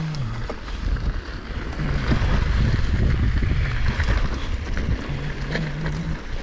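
Mountain bike rolling down a dirt and gravel trail: wind buffeting the helmet-mounted microphone over the crunch of tyres on loose dirt. A low buzzing hum comes and goes in stretches.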